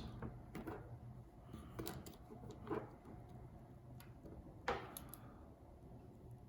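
Faint, scattered clicks and taps of small repair tools and tiny parts handled on an iPhone during reassembly, with one sharper click near the end.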